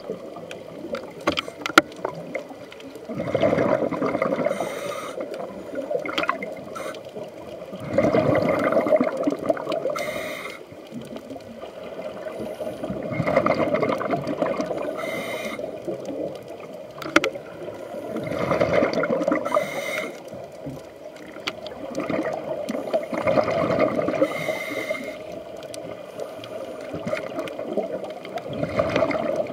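Scuba diver's regulator breathing recorded underwater: a gurgling rush of exhaled bubbles about every five seconds, six times, with small clicks and crackles in between.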